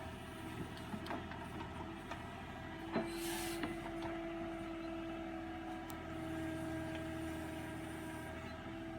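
JCB backhoe loader's diesel engine running with a steady whine over it. A clunk comes about three seconds in, followed by a short hiss.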